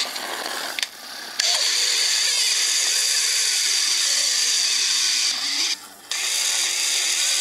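Failed Seagate 1 TB 7200 RPM hard drive running with its cover off at full speed: a loud, high, rattling whir from the spinning platters and heads. It dips out briefly about a second in and again near six seconds.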